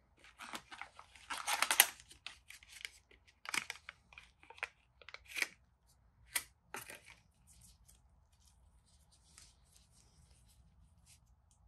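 Packaging in a smartphone box rustling and crinkling as gloved hands lift out the USB cable and pull away its wrapping. A dense crinkle comes first, then several short rustles and clicks, and after about seven seconds only faint handling.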